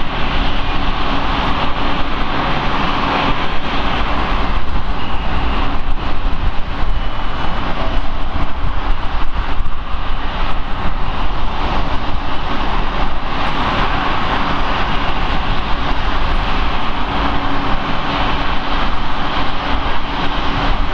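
Boeing 777 airliner's twin jet engines running steadily at low taxi power, a continuous jet noise with a faint steady hum beneath it.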